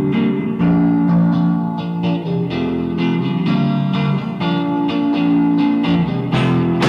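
Guitar-led music: plucked guitar notes ringing over a bass line, with chords changing every second or so.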